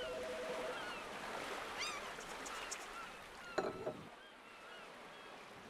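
Seagulls crying, many short gliding calls over a steady rushing hiss, with a louder honking squawk about three and a half seconds in.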